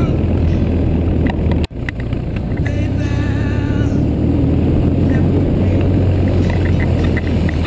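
BMW R1100GS boxer-twin engine running at a steady cruise, with wind rushing over the motorcycle-mounted microphone. The sound cuts out for an instant about a second and a half in.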